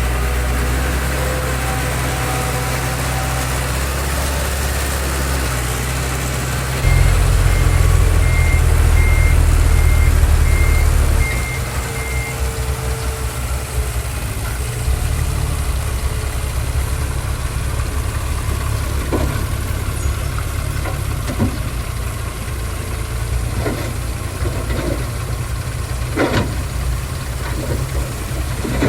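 Heavy diesel engines of earthmoving machines running. One engine surges louder and deeper from about seven to eleven seconds while a reversing alarm gives a row of short beeps at one pitch. A series of sharp metallic knocks follows in the second half.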